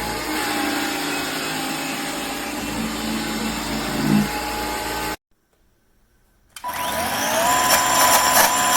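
Vacuum cleaner running steadily, cut off abruptly about five seconds in. After a short silence a motor clicks on, and its whine rises in pitch as it spins up to speed.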